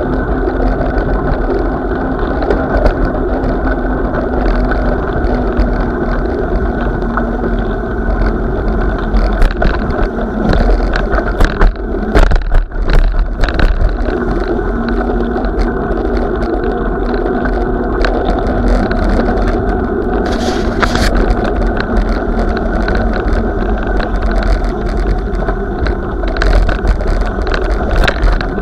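Continuous rolling and wind rumble of a ride over snowy, icy pavement, with a faint steady hum that drops in pitch about two-thirds of the way through. A cluster of sharp knocks and bumps comes in the middle.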